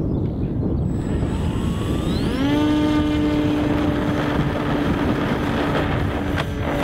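Small RC model plane's engine and propeller run up to full throttle for the take-off roll: the pitch climbs quickly about a second in, then holds a steady high buzz. Wind rumbles on the microphone underneath.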